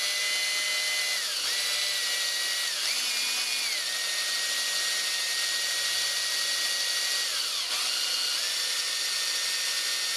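Power drill running at high speed, driving a 1/16-inch bit through a steel shaft. Its steady high whine dips in pitch and comes back up three times.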